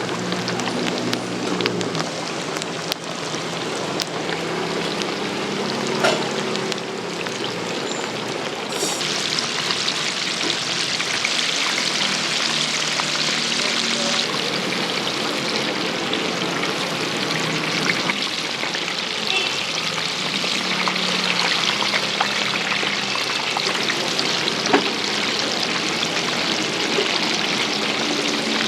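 Hot oil sizzling steadily as food deep-fries in a fryer, the hiss growing stronger about nine seconds in.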